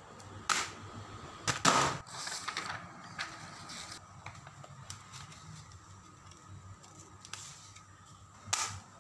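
Handling clatter as a clipboard holding paper under a plastic sheet is laid on a cutting mat and arranged: a few sharp clacks and rustles. The loudest come about a second and a half in, and another comes near the end.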